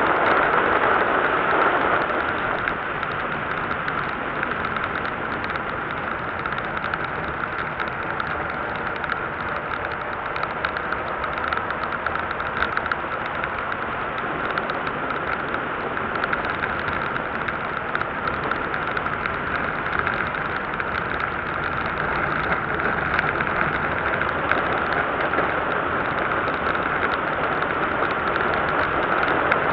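A car driving at road speed, heard from a camera mounted on the outside of its front wing. The sound is a steady rush of wind and tyre noise, with the engine underneath. It eases slightly about two seconds in and slowly builds again toward the end.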